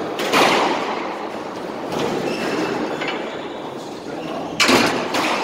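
Sharp knocks ringing around a glass-walled squash court, one shortly after the start and a louder one near the end, the louder one as the court's glass door is pulled shut and latched.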